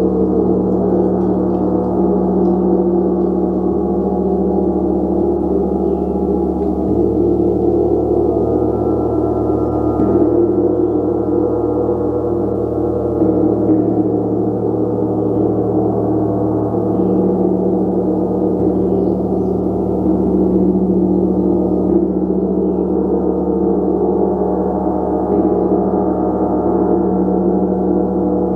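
Gong played continuously in a sustained, swelling wash of many overlapping tones, with soft strikes now and then that keep it sounding.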